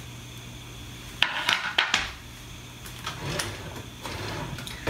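A few sharp clatters of a spatula and wooden cutting board knocking against a frying pan as chopped onions are tipped in, about a second in, then a couple of lighter clicks, over a steady low hum.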